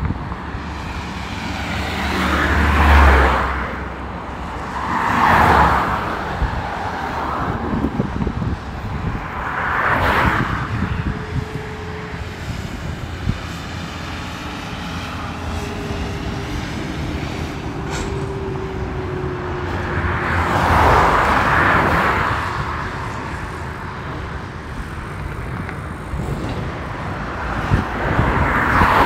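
Vehicles passing one at a time on a multi-lane highway, each swelling and fading with tyre noise over a steady traffic hum. There are about five passes, and the first carries a deep engine rumble.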